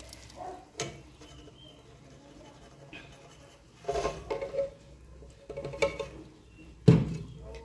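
Thick red chile-and-tomato salsa being poured from a container into a pot of vegetable soup: faint pouring, a light clink of the container against the pot about a second in, and one sharp knock near the end.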